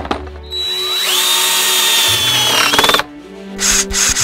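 Cordless drill driving a screw into a wooden beam: the motor whine climbs in pitch about a second in, holds steady under load, and stops about three seconds in. A run of rhythmic scraping pulses follows near the end.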